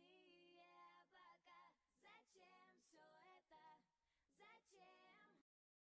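Very faint female singing, a run of sung notes with no words picked out, cutting off suddenly about five and a half seconds in.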